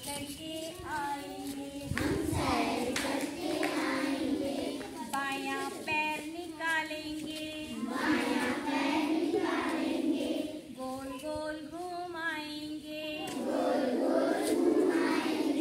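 A group of children singing an action song in chorus, with a woman's voice leading them, in sung phrases of a second or two.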